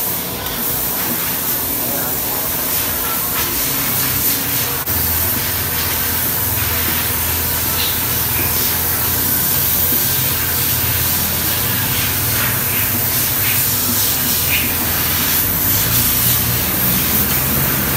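Kawasaki Barako 175 single-cylinder motorcycle engine idling, a steady low rumble that comes in about five seconds in over a constant hiss.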